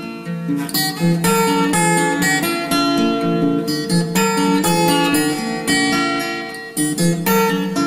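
Instrumental background music of strummed and plucked guitar chords, with notes changing about every half second.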